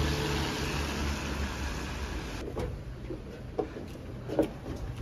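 Wet-street ambience: a steady hiss with a low hum of traffic. About two and a half seconds in it gives way to quieter room sound with a few light knocks and taps.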